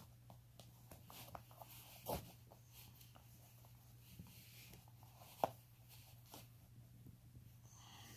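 Faint scratch and tug of laces being pulled tight through a hunting boot's eyelets and speed hooks, with scattered soft ticks and two sharper clicks, about two and five and a half seconds in. A low steady hum runs underneath.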